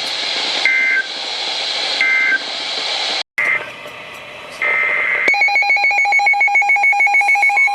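Radio static hiss broken by two short two-tone electronic beeps, then a sudden cut. After it come a steady beep and a fast, evenly pulsed electronic beeping, several pulses a second.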